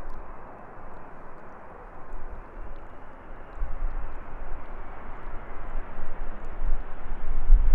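Jet airliner's engines heard as a steady rushing noise that slowly grows louder and brighter as the aircraft approaches, with a low rumble swelling near the end.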